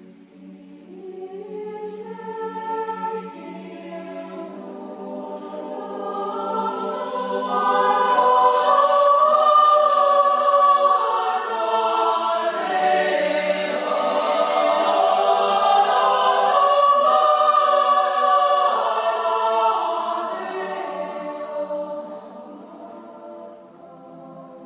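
Mixed youth choir singing a cappella in sustained chords, building from soft to a loud climax in the middle and dying down near the end.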